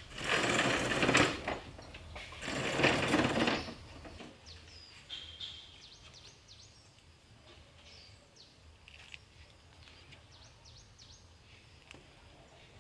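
Two loud bursts of harsh noise, each about a second long, in the first four seconds. After them, birds chirping quietly, in short repeated calls.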